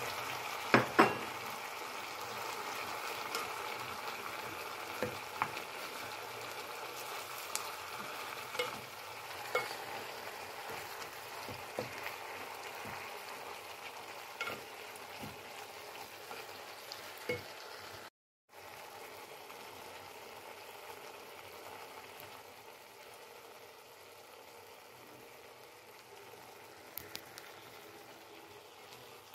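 Vegetables sizzling as they stir-fry in a pan, stirred with a wooden spoon that knocks against the pan every second or so. Two sharp knocks about a second in, the loudest sounds, as scrambled egg is tipped in from a plate; the sizzle is softer after a brief break past the middle.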